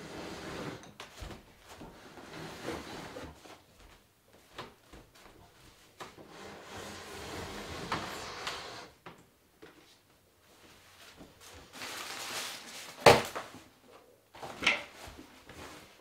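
A painted wooden dresser being handled: long sliding scrapes of wood on wood with small knocks, then a sharp knock about 13 seconds in and a second, lighter one about a second and a half later.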